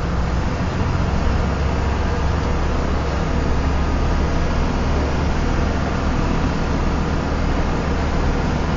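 Bus engine and road noise inside the moving bus cabin: a steady low drone with even rumble and no sudden events.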